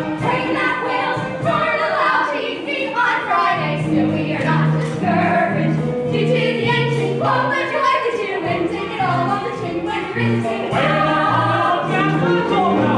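A musical-theatre ensemble singing a show tune in chorus over instrumental accompaniment, with a bass line stepping underneath.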